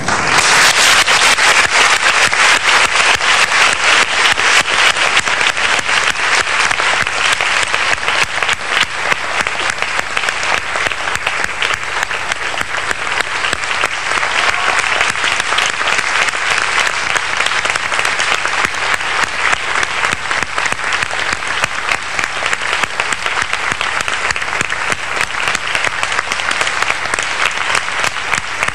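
A large audience applauding, breaking out suddenly and then keeping up a steady, dense patter of clapping.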